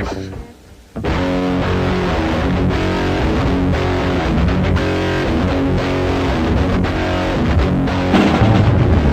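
Rock band playing with electric guitar. A held note slides down and dies away at the start, there is a gap of under a second, then the band comes back in and plays on.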